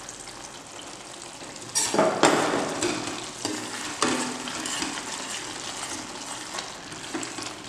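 A metal ladle stirring egg masala powder into a thick curd-and-milk gravy that is simmering and bubbling in a pan, with louder scraping strokes about two seconds and four seconds in.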